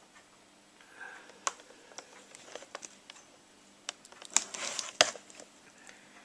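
Toy figures in their plastic packets being handled: scattered clicks and taps of stiff plastic, with a burst of crinkling and two sharp knocks about four to five seconds in.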